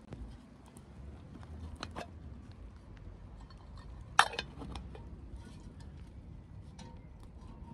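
Metal camping pot and its lid knocking and clinking as they are handled, with one loud ringing clank of the lid against the pot about four seconds in.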